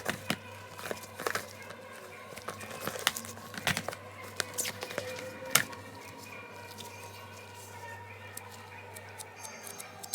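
Packaging being handled and opened: scattered crinkles, taps and tearing sounds, over a steady low hum.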